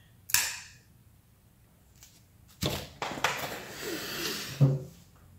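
QSP Vault folding knife being worked open and shut: a few sharp clicks of its crossbar lock, followed by a breathy exhale.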